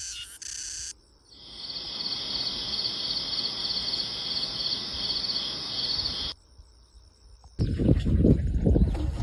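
Insects trilling in a steady high, pulsing chorus, with a faint even hiss beneath, broken by abrupt cuts. Near the end a loud low rumbling noise takes over.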